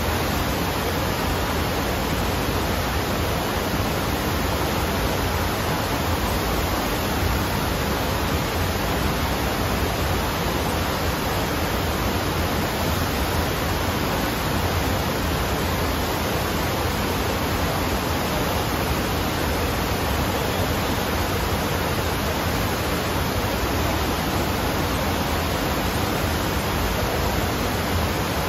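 Steady rush of water pumped in a thin sheet up the padded ramp of an indoor sheet-wave surf simulator, with a low rumble beneath it.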